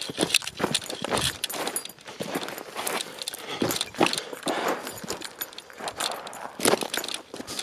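Footsteps in sneakers crunching and scuffing over loose gravel and small rocks on a steep trail, an uneven run of crackling, rattling steps.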